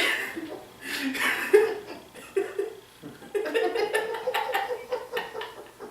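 A man's stifled, breathy laughter in three bursts, the last and longest starting about three seconds in.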